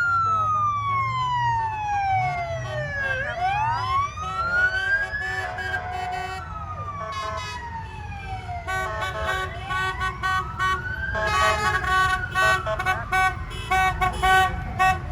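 Emergency-vehicle siren wailing slowly up and down, each rise and fall taking several seconds, over a low engine rumble. From about nine seconds in, a horn joins it in quick repeated blasts.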